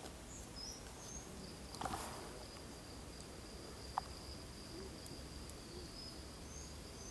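Faint riverside ambience: a steady high-pitched trill that starts about a second and a half in and runs for several seconds, with scattered short bird chirps above it, a brief rustle about two seconds in and a single click about four seconds in.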